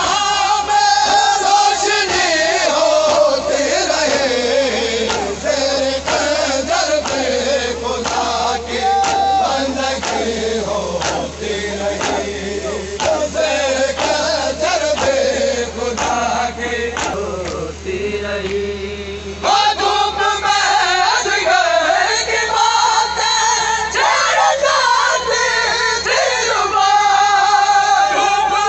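Men's voices singing a noha (Shia lament) in long, drawn-out melodic lines, with others in the crowd singing along; the singing dips briefly about two-thirds through, then carries on.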